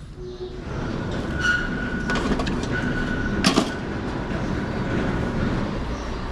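Sliding metal gate rolling along its steel track, the wheel rumbling on the rail with a thin squeal for a second or two and a sharp metallic clack about three and a half seconds in.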